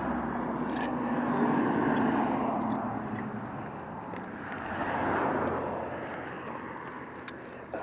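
Road traffic passing: the noise of vehicles swells and fades twice, loudest about two seconds in and again about five seconds in. A few faint ticks come near the end.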